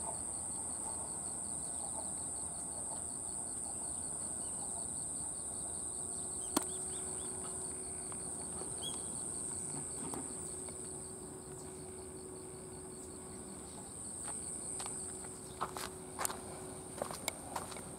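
Crickets chirring in a steady, high-pitched chorus, with a second insect trilling in rapid pulses beneath it. Near the end come a few footsteps on pavement.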